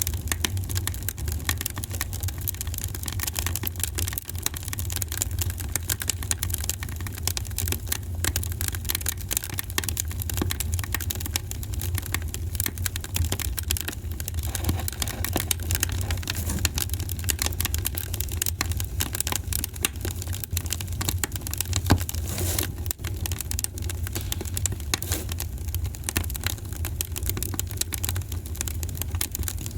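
Wood fire crackling in a fireplace: dense, irregular crackles and pops over a steady low rumble, with one louder pop about two-thirds of the way through.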